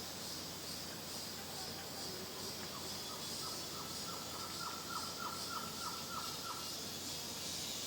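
Rainforest ambience: a steady chorus of insects with a bird calling a rapid series of short, slightly falling notes, about four a second, starting a few seconds in and lasting about four seconds.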